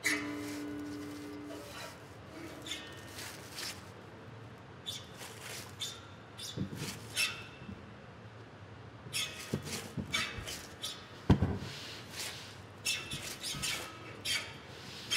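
Sparse rubbing, scraping and clicking in irregular clusters, with a brief held low tone at the very start and a single sharp knock about eleven seconds in.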